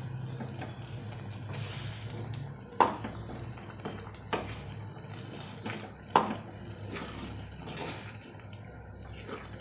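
A spoon stirring and breaking up boiled potatoes in a thick pea gravy in a nonstick pan, with soft wet squelching and a few sharp taps of the spoon against the pan, over a low steady hum.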